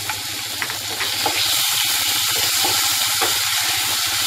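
Chopped tomatoes, onions and capsicum sizzling in hot oil in a kadhai while a wooden spatula stirs them; the hiss grows louder about a second and a half in, as the freshly added wet tomatoes are spread into the oil.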